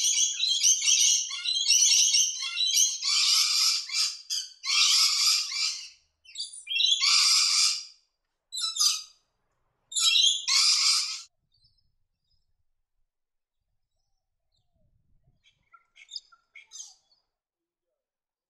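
Scaly-breasted lorikeets calling in a rapid run of harsh, shrill screeches that stop about eleven seconds in, followed by a few faint short calls near the end.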